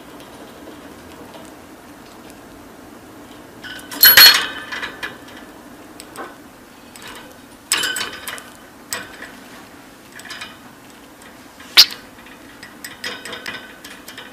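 Pet budgerigar chattering in short, loud, shrill bursts of chirps and warbles, with a single sharp click shortly before the end, over a faint steady hum.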